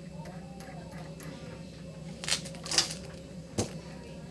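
Hands handling and fitting small chrome-plated parts of a scuba regulator first stage: two short scraping, rustling noises a little after two seconds in, then a single sharp click, over a steady low hum.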